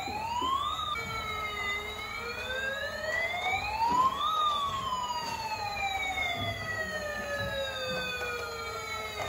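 Battery-operated bubble-blowing toy fire truck's electronic siren wailing. After a short rise that breaks off about a second in, the pitch climbs slowly for about three seconds, then falls slowly for about five.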